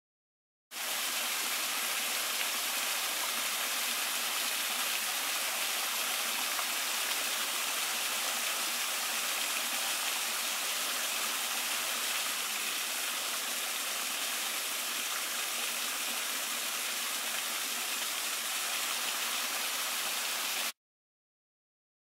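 Small waterfall splashing over a rock ledge into a pool, a steady rushing of water that starts abruptly about a second in and cuts off suddenly near the end.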